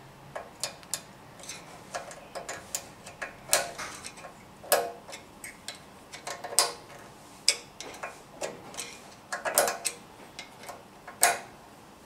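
Irregular sharp metallic clicks and ticks of a small screwdriver working against a steel snap-ring installation tool and the snap ring on a gearbox input shaft, as the ring is pried and eased toward its groove. The clicks come at uneven intervals, with a handful of louder ones, and stop shortly before the end.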